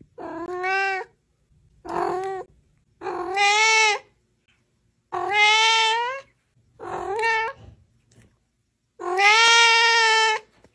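A cat meowing six times, each meow drawn out to about a second, with short silences between; the last meow is the longest.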